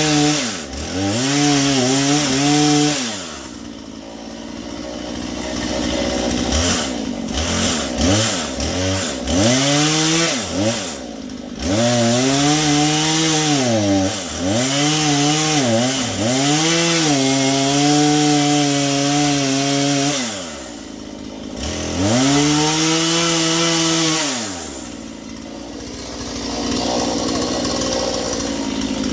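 Petrol chainsaw cutting a log, its engine revving up under the throttle and dropping back to idle again and again. The chain needs sharpening.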